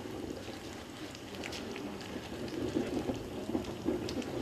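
Molten bell bronze pouring from a ladle into a bell mould, a steady crackling hiss with scattered small pops.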